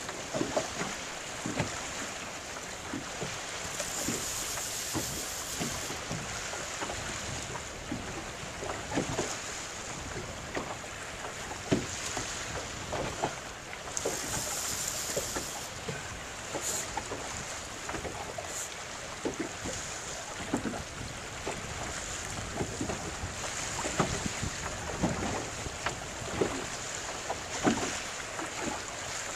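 Wind buffeting the microphone over choppy open water, with waves lapping and slapping irregularly against a small boat's hull.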